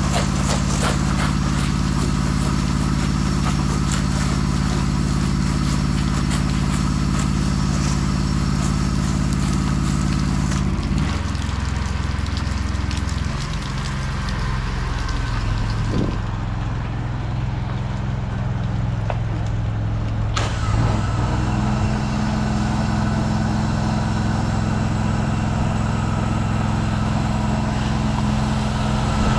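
An engine running steadily, with a hiss over it; its pitch shifts lower about a third of the way in and changes again about two thirds of the way through.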